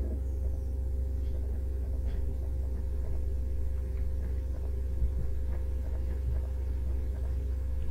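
Steady low electrical hum and rumble, with a few faint scattered ticks.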